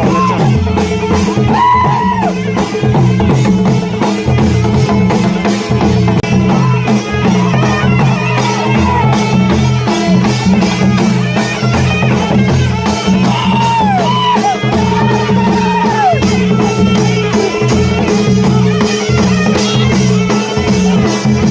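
Adivasi wedding music from dhol and mandal drums beating a fast steady rhythm, with a wind instrument playing a bending, wavering melody over a steady drone.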